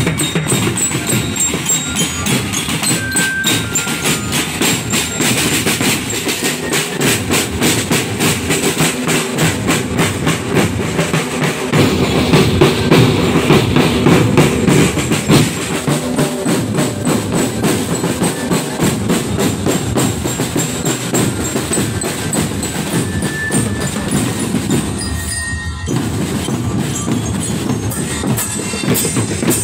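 Marching drum band playing: snare, tenor and bass drums beating a dense, fast rhythm, with bell lyras (marching glockenspiels) ringing a few notes. The drumming breaks off for a moment near the end, then starts again.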